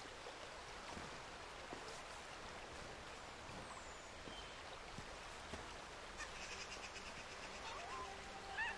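Faint outdoor ambience, a steady hiss with a few soft clicks; about six and a half seconds in, soft sustained music tones come in.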